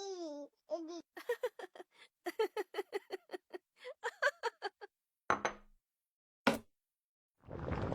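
Laughter in quick short bursts, then two sharp knocks a little over a second apart, and a hissing noise starting near the end.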